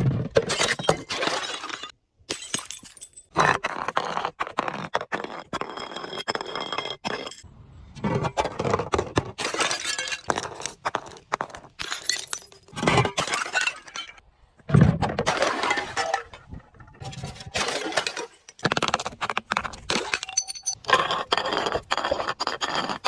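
Glass bottles being broken and crushed: crunching, shattering and clinking of glass shards in several separate stretches, each cut off by a brief silence.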